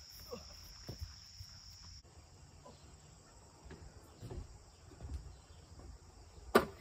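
Crickets chirping steadily as a thin high drone, with a few faint knocks. Near the end there is a sudden loud splash of someone going into the swimming pool.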